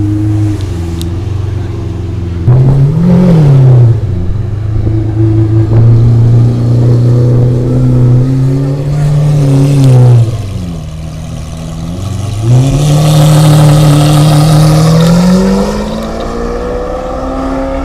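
A blue Lamborghini's engine, really loud, revving as the car pulls away and drives down the street. There is a quick blip about two and a half seconds in, then it is held at high revs, dips briefly around ten seconds, and rises again, climbing steadily near the end.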